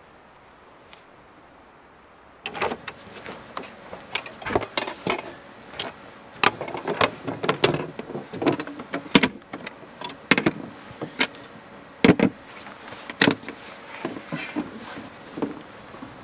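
A folding camp table being unfolded and set up and cooking gear being handled: irregular clicks, knocks and clatter. These begin about two seconds in, after a stretch of faint background.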